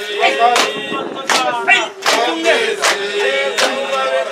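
A group of men singing together, with sharp percussive beats keeping time about every three-quarters of a second.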